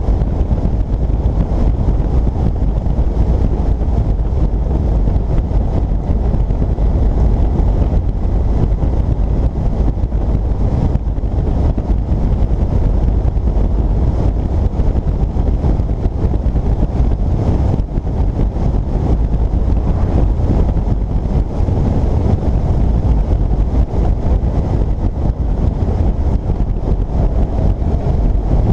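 Wind rushing over the microphone of a Yamaha FJR1300 sport-touring motorcycle riding at road speed. A deep, steady rush, with the bike's engine and road noise blended underneath.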